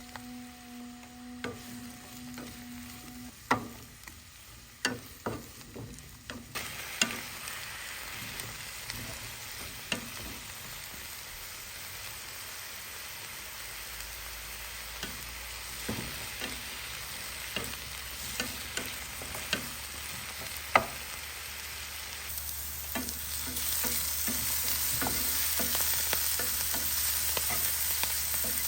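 Food frying in hot oil in a pan, sizzling steadily from about six seconds in and growing louder near the end, with sharp clicks and knocks of a utensil stirring against the pan. A held musical tone cuts off about three seconds in.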